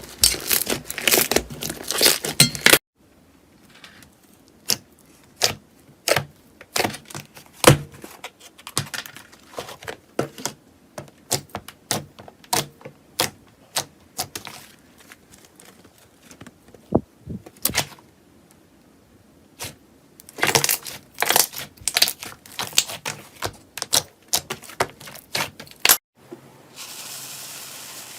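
Slime being squeezed and pressed by hand, making crisp crackling clicks and pops: dense at first, sparser separate pops through the middle, dense again later. Near the end a steady hiss takes over.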